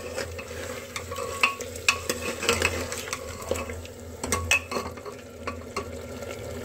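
Mutton pieces with ginger-garlic paste frying in oil in a pressure cooker, sizzling steadily, while a steel ladle stirs them with irregular scrapes and clinks against the pot. This is the bhuna (browning) stage of the cooking.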